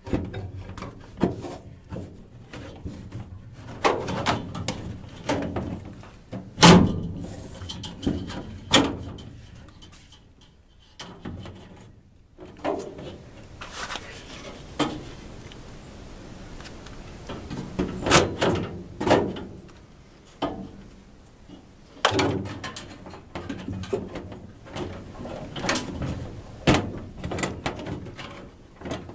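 Irregular knocks, clunks and scraping as a furnace filter is worked loose from the vent housing, with the loudest knock about seven seconds in.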